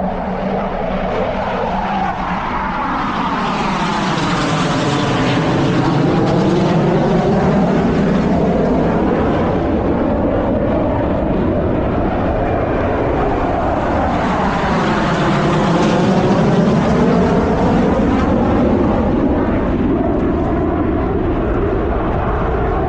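Military jet aircraft flying overhead: a loud, steady roar that swells and sweeps twice, about five and fifteen seconds in, as the jets pass.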